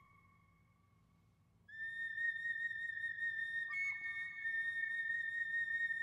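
Flute-like music: long held high notes, starting about a second and a half in, with a second, higher note sounding alongside from about four seconds in.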